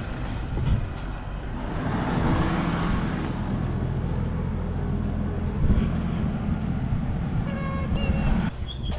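An engine running steadily with a low hum, swelling louder about two to three seconds in, with a brief high-pitched squeal near the end.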